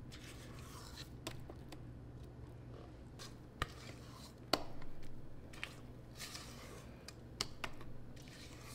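Kitchen utensils clicking and scraping in batter preparation, a handful of sharp taps and short scrapes from about three and a half seconds in, over a steady low hum.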